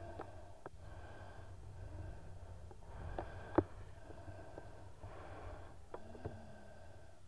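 Muffled sloshing of sea water against a camera held at the surface, with a low rumble and a few sharp knocks, the loudest about three and a half seconds in.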